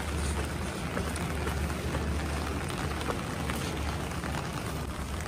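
Rain falling on an umbrella held over the microphone: a steady hiss of many small drop hits over a steady low rumble.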